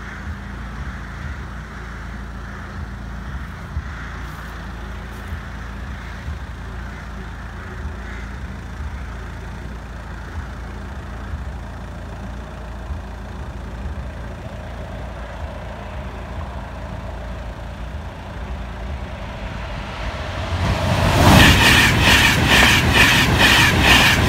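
A steady low background hum. From about 20 seconds in, an InterCity 225 express passes at speed: Class 91 electric locomotive 91132 with driving van trailer 82201, running in reverse formation. Its wheels give a loud, rapid, regular clatter over the track.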